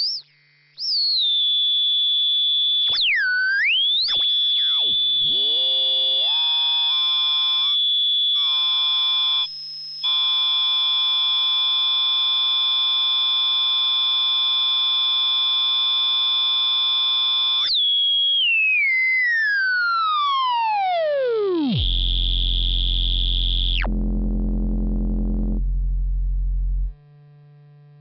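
Buchla and Eurorack modular synthesizer tones: quick rising and swooping pitch sweeps, then a long held high tone. The high tone falls away in a long downward glide into a low, buzzy drone, which steps down and cuts off sharply near the end, leaving only a faint hum.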